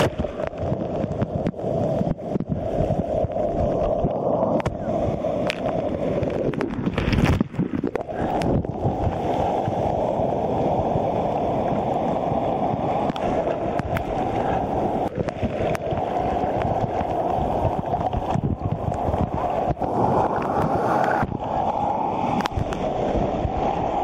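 Sea surf churning around a camera held at the waterline, waves breaking and washing over it: a continuous muffled rushing and gurgling of water, with many short knocks of water against the camera and a heavier surge about seven seconds in.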